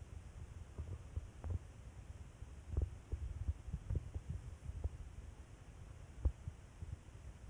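Irregular low thumps and rumbles with a few short knocks, the handling noise of a hand-held phone's microphone.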